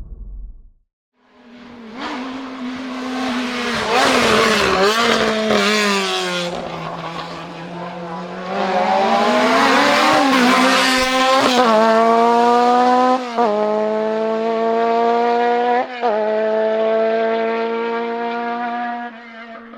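Hillclimb racing car engine at full throttle: the revs drop and climb again through a corner, then hold high with quick cuts at each upshift, and the sound fades as the car drives away.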